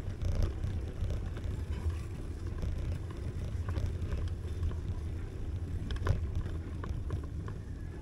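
Wind rumbling on the camera microphone while riding a folding bicycle, with a few light rattles and a sharper click about six seconds in.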